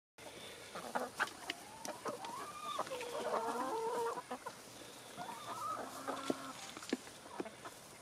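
Backyard chickens clucking as they feed, with drawn-out calls that waver in pitch about halfway through and again near the end. Scattered sharp taps of pecking run through the calls.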